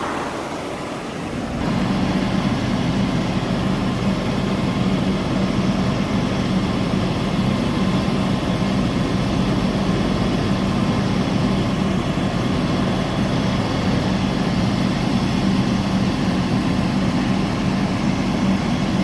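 Car engine idling steadily, louder from about one and a half seconds in.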